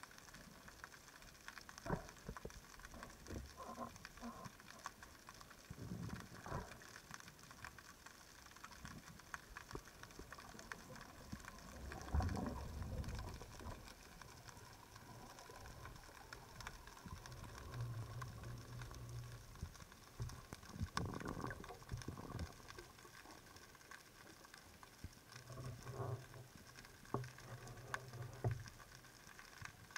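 Underwater ambience picked up by a camera in a waterproof housing: faint crackling with scattered clicks and knocks. There are a couple of louder low swells, and a low steady hum comes twice in the second half.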